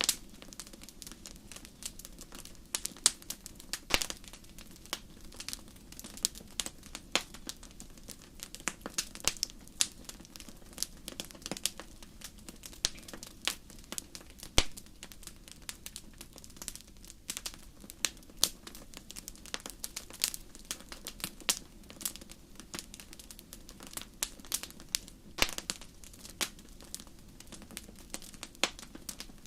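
Burning firewood crackling and popping: irregular sharp snaps of varying loudness, several every second, over a faint low hiss of the fire.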